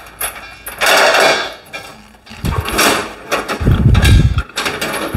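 Metal clanks and knocks of a shielding-gas cylinder being changed on a MIG welder cart, with the cylinder, its retaining chain and the regulator fitting being handled. A short hiss comes about a second in, and heavy low thumps come after the middle.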